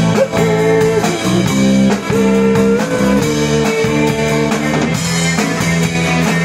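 A live band playing: acoustic and electric guitars with a drum kit, and long held notes carried over the top.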